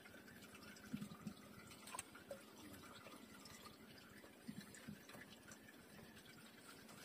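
Near silence with faint water drips and small splashes from a wet fishing longline being hauled hand over hand into a small boat. A handful of soft drips and taps come at scattered moments.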